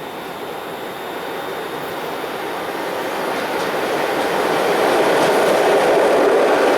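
Passenger train hauled by a ChS7 electric locomotive approaching on the rails, its running noise growing steadily louder.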